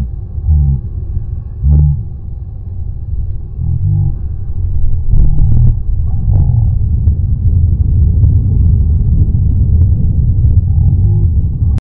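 Strong wind buffeting the microphone over waves breaking on a rock ledge: a heavy, low rumble with short surges.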